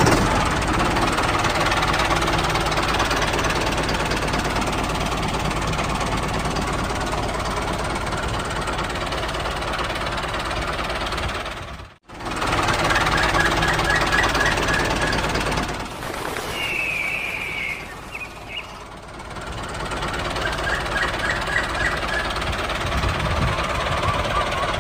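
Tractor engine running with a steady knocking chug. It cuts out for an instant about twelve seconds in, then starts again. It eases off for a few seconds later on, where a brief high chirping is heard.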